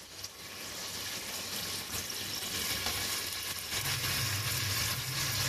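Cumin seeds sizzling in hot oil in an aluminium pressure cooker. The sizzle grows louder as sliced onions go into the oil, and a low hum joins it about four seconds in.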